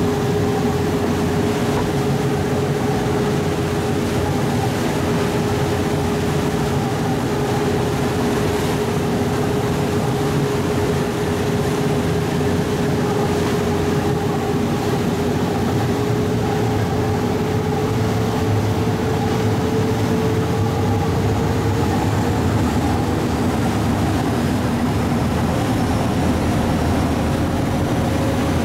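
Ferry engine running steadily underway, heard on board as a continuous drone with a steady hum whose pitch edges up slightly about two-thirds of the way through.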